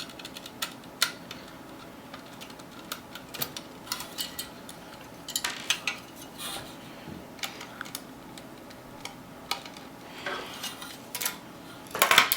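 Metal parts of a computer case clicking and clinking irregularly as the front drive cage is worked loose and pulled off.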